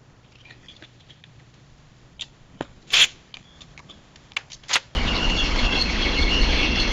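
Bird calls: a few sharp, short chip notes against quiet, the loudest about three seconds in, then about five seconds in a dense chorus of chattering birds starts abruptly.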